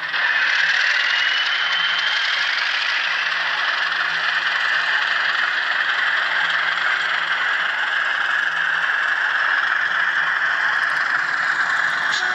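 Sound-fitted N gauge Class 37 model under power. Its Zimo sound decoder plays the locomotive's diesel engine and turbocharger through a tiny microcube speaker, heard as a steady, thin, rasping engine noise. A whistle rises in pitch about a second in.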